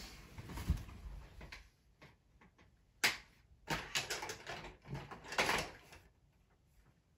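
Hard plastic Playmobil train car being handled and turned over: a dull knock about a second in, then a sharp click about three seconds in followed by a run of plastic clicks and rattles.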